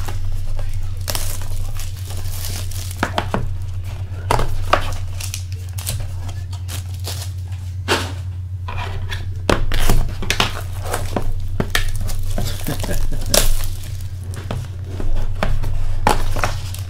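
Foil trading-card pack wrappers and their boxes being handled and torn open, in a run of short crinkles and rips over a steady low hum.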